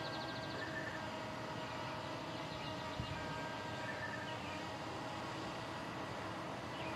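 Steady hum of a hovering drone's propellers, with birds chirping now and then and one small knock about three seconds in.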